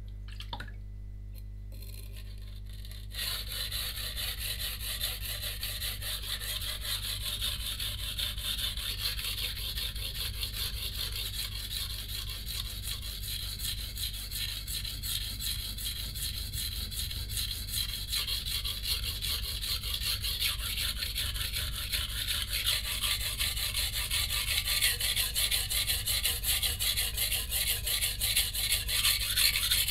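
A santoku's steel blade being stroked rapidly back and forth on a coarse 180-grit whetstone, a steady gritty rasping that starts about three seconds in. This is the coarse-stone stage, re-setting the edge bevel at normal sharpening angle after the chips were ground out.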